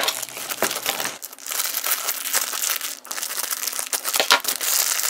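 Crinkling and rustling of a plastic wrapper and mesh net being handled and cut open with scissors, with small snips and clicks, to free a squishy stretch ball.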